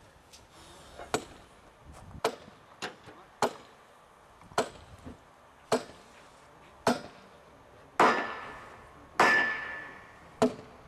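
Hand track tools striking during track laying: nine sharp blows about one a second, at a steady working rhythm. The two loudest, near the end, ring on longer with a clear tone.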